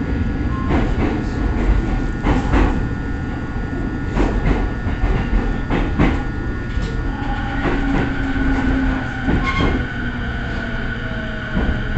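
Running sound inside a JR E217-series electric train under way: a steady low rumble of wheels on track with irregular clicks as the wheels pass rail joints. Faint whining tones sit over it, shifting slowly in pitch in the second half.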